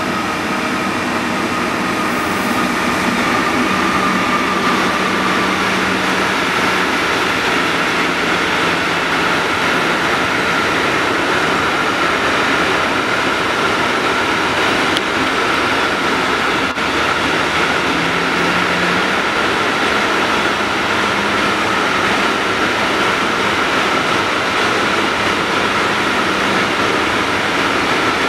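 Long freight train of loaded hopper wagons, hauled by two electric locomotives, rolling steadily past with a constant rumble of wheels on rails and a steady high whine above it.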